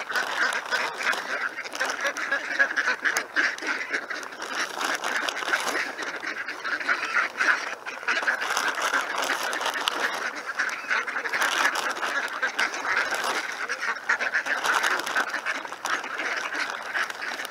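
A flock of ducks quacking and chattering without a break, many calls overlapping.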